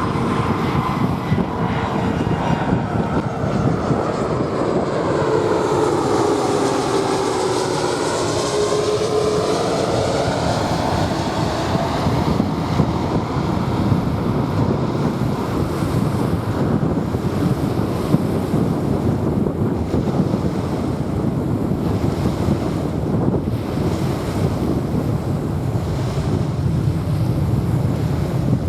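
Jet airliner passing, its engine whine gliding down in pitch over the first ten seconds or so, over steady surf and wind buffeting the microphone.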